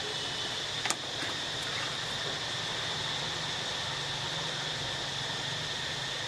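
Steady outdoor background noise with a constant high-pitched drone, and one sharp click about a second in.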